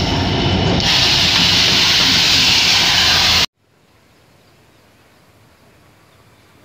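Diesel locomotive and its train passing close by, loud and steady, growing louder and fuller about a second in. The sound cuts off suddenly about three and a half seconds in, leaving only a faint outdoor background.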